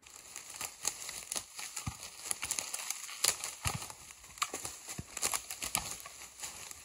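Large firewood rounds tumbling down a steep, brushy slope: a string of irregular knocks and crackles as the wood strikes the ground and breaks through twigs and debris, with a few deeper thuds along the way.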